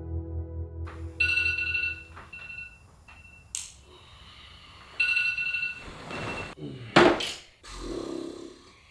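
Ambient music fades out, then an electronic alarm rings in short repeated high beeps, stops, and rings again a few seconds later. A sharp click sounds between the two rings, and bedding rustles near the end.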